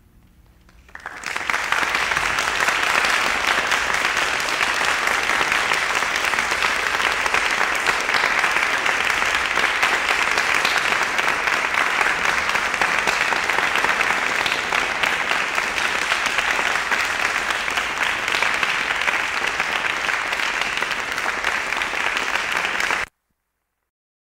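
Audience applause on an old tape recording, swelling up about a second in and holding steady, then cut off abruptly near the end where the recording stops.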